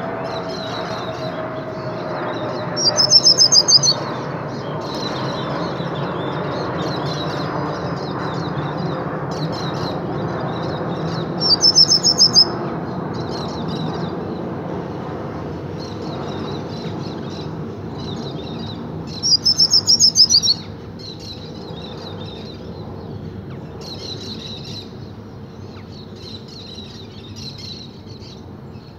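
Juvenile hooded siskin (pintassilgo) singing in its cage: a continuous, rambling high twitter, broken by three louder, ringing phrases about eight seconds apart, over a steady low background rumble.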